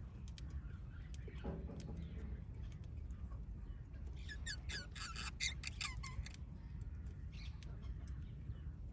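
Small pet parrots chirping: a quick run of sharp, falling chirps starting about four seconds in and lasting about two seconds, with a few fainter chirps scattered around it, over a steady low rumble.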